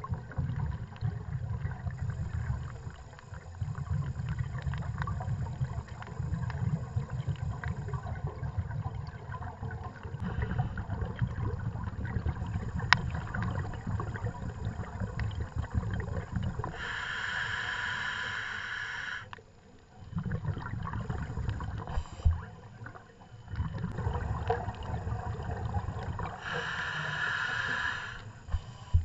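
Scuba diver's regulator breathing heard underwater: exhaled bubbles gurgling and rumbling through most of it, with two hissing inhalations, one a little past halfway and one near the end.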